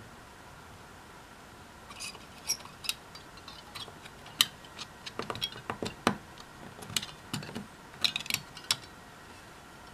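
Sharp plastic clicks and taps as a white spring-loaded plastic part is handled and seated into the opened plastic housing of a Makita 14.4 V BL1430 battery pack. The clicks come irregularly from about two seconds in until near the end, with two louder snaps in the middle.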